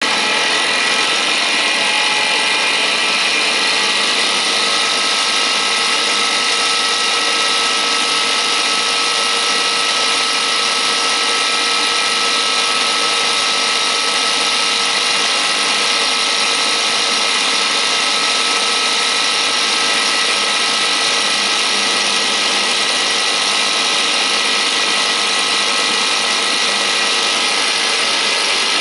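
Small high-speed Stirling engine running fast and steadily, a continuous mechanical whir and buzz, its speed climbing from about 2,400 to about 3,100 rpm.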